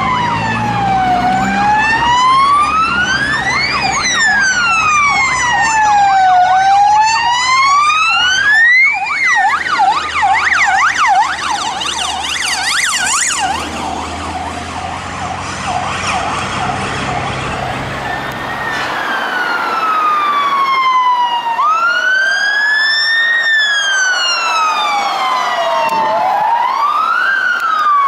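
Electronic emergency-vehicle siren in a slow wail, rising and falling about every two and a half seconds. Around nine seconds in it switches to a rapid yelp, then returns to the wail. A vehicle engine runs underneath until it fades out about nineteen seconds in, after which only wailing siren sweeps remain.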